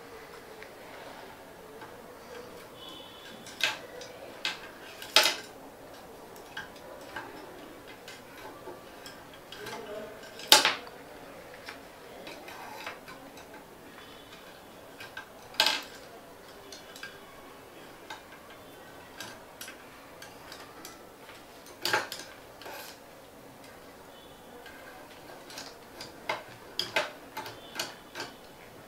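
Paintbrushes being dropped one at a time into a plastic grid brush holder: scattered sharp clicks and taps at irregular intervals, with a few louder knocks.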